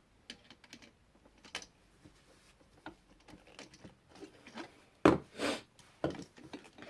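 Screwdriver tightening a terminal screw on an electrical outlet down onto a looped wire: faint scattered clicks and small scrapes, with a louder brief rustling noise about five seconds in.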